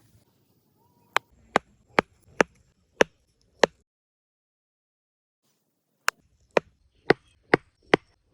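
Two runs of six sharp strikes each, about two a second, separated by a pause of a little over two seconds.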